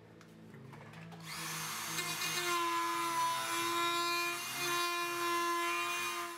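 Dremel rotary tool starting up about a second in and running at high speed with a steady whine and a grinding hiss, widening the hole in the back of the plastic canopy.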